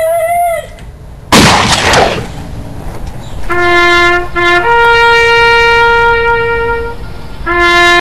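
A short pitched yell, then a loud sudden rush of noise about a second and a half in. After that a horn sounds long steady notes: a low note, a higher note held for about two seconds, and the low note again.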